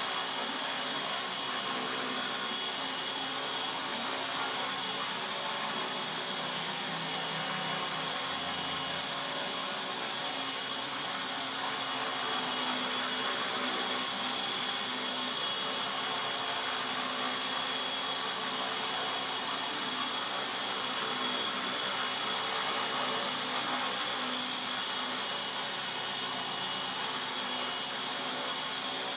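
Align T-Rex 450 SE electric RC helicopter hovering: the brushless motor and gear drive give a steady high whine over the rushing hiss of the spinning rotor blades, holding an even pitch and level throughout.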